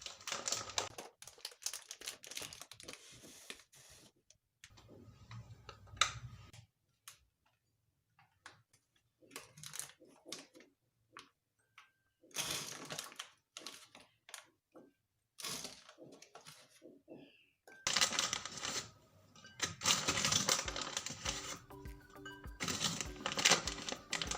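Handling sounds: a run of small clicks, taps and rustles from objects being picked up, set down and moved, in short bursts separated by gaps.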